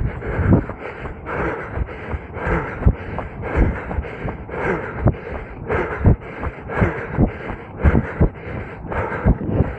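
A runner's heavy breathing and footfalls while running, in an even rhythm of about two pulses a second.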